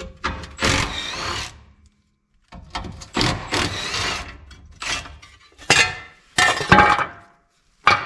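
Handheld power tool run in about six short bursts, each up to about a second and a half, with short pauses between, its pitch bending as it speeds up and slows, working on the bolts holding the fuel tank's dust shield.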